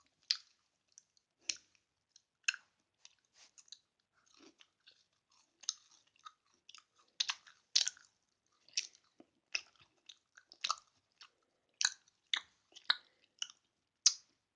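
Close-miked chewing: irregular wet mouth clicks and smacks of someone biting and chewing soft food, a few a second.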